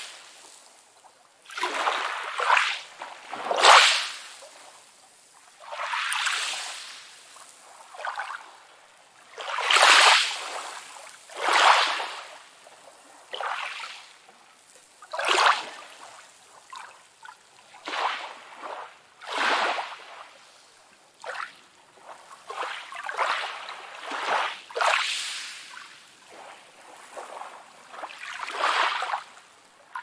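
Small sea waves splashing and washing in, one surge every two to four seconds, mostly hiss with little low rumble.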